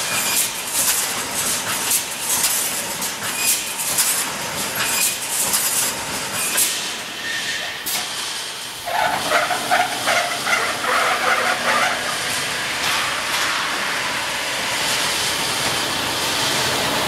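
Automatic wire-mesh welding machine running, its welding heads firing in a steady clatter of sharp strikes, roughly one or two a second. About eight seconds in the strikes stop, and a pulsing, squealing mechanical sound takes over for a few seconds before settling into a steady noise.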